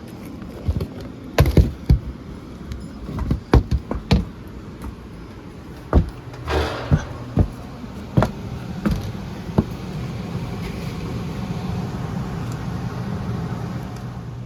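A string of sharp knocks and clunks of handling, with a door sliding or scraping about six seconds in. A steady low machine hum then sets in about ten seconds in and keeps going.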